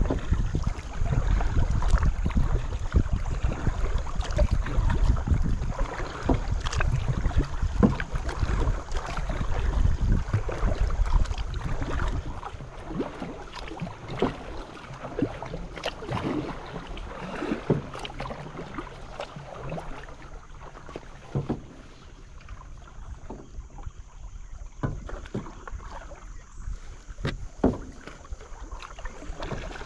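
Canoe or kayak paddle strokes dipping and splashing in creek water, a stroke every second or two. A low rumble runs under them for the first twelve seconds or so, then dies away.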